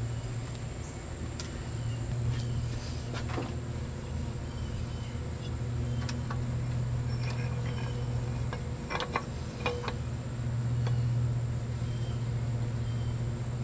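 A steady high insect buzz over a constant low hum, broken by a few light clicks and knocks as a metal intercooler and elbow are set and shifted on top of the engine.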